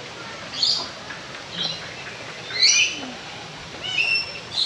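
Bird calls: short high chirps repeated about once a second, five in all.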